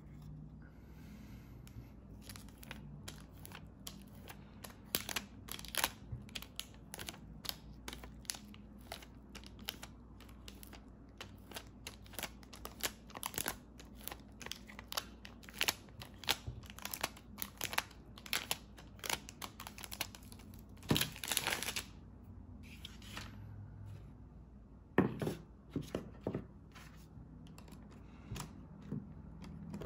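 Thin clear plastic protective film crackling and crinkling as it is peeled off a tempered-glass screen protector and handled. It comes as many small irregular crackles, in louder clusters here and there.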